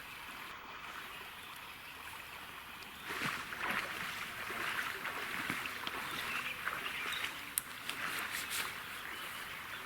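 River water rippling and trickling, with small splashes and clicks that grow busier from about three seconds in.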